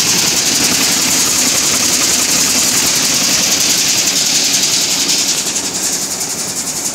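Peanut chopper machine running: a steady mechanical rattle with a dense high hiss as chopped peanut pieces shake across its vibrating steel grading screens. It gets slightly quieter in the last second or two.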